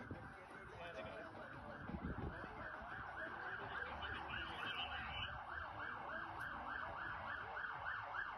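Emergency vehicle siren in a fast yelp, rising and falling about three times a second, that cuts off abruptly near the end.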